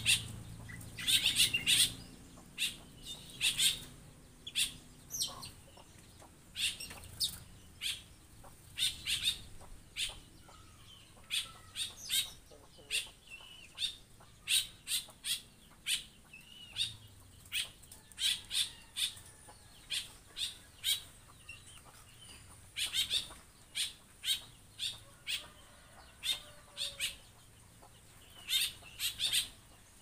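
Stilts calling: short, sharp calls repeated irregularly, often in quick runs of two to four, with brief lulls between runs.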